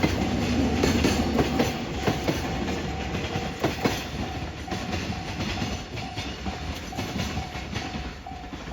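Freight train of Koki container flatcars rolling past, wheels clattering over rail joints in a regular clickety-clack, slowly fading as the train draws away.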